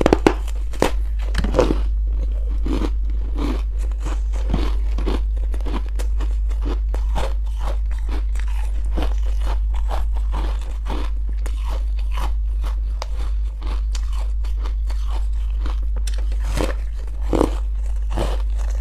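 Crunchy buckwheat chunks being bitten and chewed close to the microphone: a quick string of sharp crunches, loudest at the first bite and again near the end. A steady low hum runs underneath.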